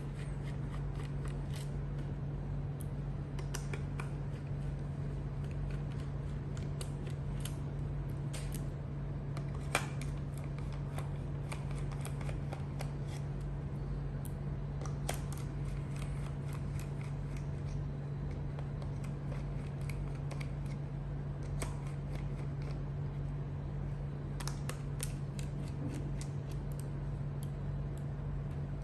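Scattered small clicks and ticks from a screwdriver and hard plastic body parts being handled while screws are taken out of a scale RC helicopter's plastic fuselage, over a steady low hum.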